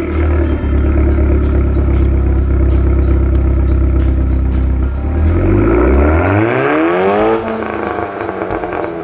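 Ford Sport Trac engine running steadily just after a cold start, then revving up, its pitch rising for about two seconds from around five seconds in before settling again.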